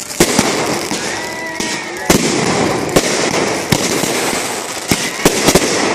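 Fireworks going off: a string of sharp bangs, spaced irregularly and coming faster near the end, over continuous crackling.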